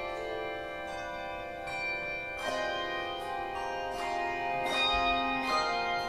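Handbell choir ringing a slow hymn: chords of brass handbells struck together and left to ring, a new chord about every second, each one sounding over the fading last.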